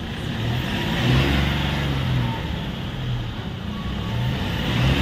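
Mahindra Bolero's three-cylinder mHawk diesel engine being revved from idle, rising and falling a couple of times. It picks up cleanly without cutting out, showing the stalling fault is cured.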